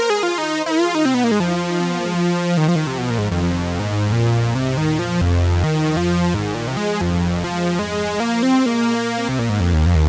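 Sequential Take 5 polyphonic analog synthesizer played live on its keyboard with a lead patch. The notes slide in pitch at first, then low bass notes and chords come in under the melody about three seconds in.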